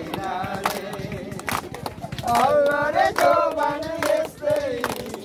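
A folk song sung without instruments while a group claps hands in time, about two claps a second. The singing swells louder about two seconds in.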